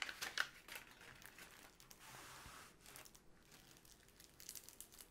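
Clear plastic film on a rolled diamond-painting canvas crinkling and crackling as hands unroll it and press it flat, with scattered quick crackles and a soft rustle about two seconds in.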